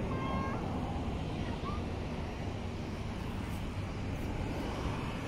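Steady low rumble of a passenger aircraft's engines at the airport, mixed with wind on the microphone. A brief high beep sounds right at the start.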